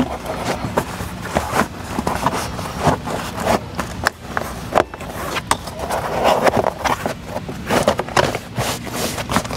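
Floor mat being worked into place in a truck's footwell and fixed with its retaining clips: irregular scraping and rustling with scattered short knocks and clicks.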